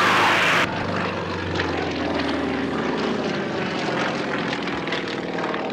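Radial engines of Sukhoi aerobatic monoplanes running hard overhead as they climb and maneuver: a steady propeller drone whose pitch wanders slowly.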